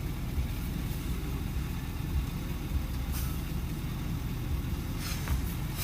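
Steady low rumble of a car with its engine running.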